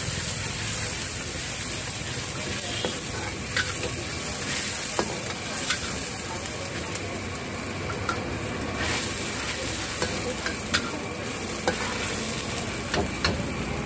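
A thin sauce sizzling and bubbling in a black iron wok while a long-handled metal ladle stirs it. The ladle scrapes and knocks against the wok every second or two.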